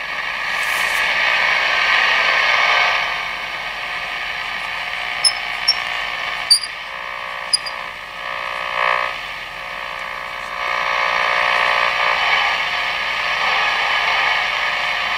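Zenith 6S527 tube radio's speaker giving steady static hiss between stations as the dial is turned, with a few sharp clicks in the middle.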